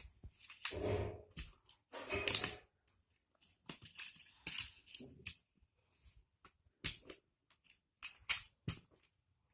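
Magnetic building blocks clicking and clacking as they are handled and snapped together, in irregular sharp clicks with the loudest a little before seven and about eight seconds in.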